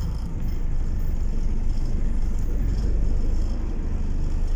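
Low, steady rumble of a city bus's engine and running gear, heard from inside the passenger cabin.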